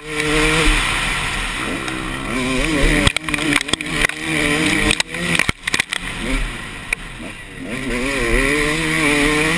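2013 KTM 250 SX two-stroke motocross engine on the move, revving up and down as the throttle is worked. It has a few sudden brief drops in sound, about three seconds in and again near the middle.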